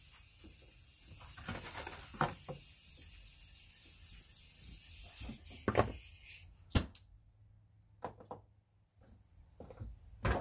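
Handling noises: a few short clicks and knocks of small hard objects being picked up and set down, over a steady hiss that stops about six seconds in.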